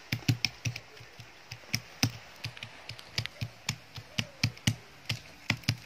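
A quick, irregular run of sharp taps and knocks, like a small hard object being banged against a surface, at times about four a second.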